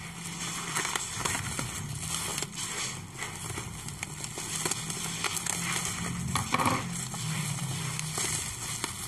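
Plastic mailer bag crinkling and crackling as it is cut open with scissors and pulled apart by hand, a continuous run of small crackles.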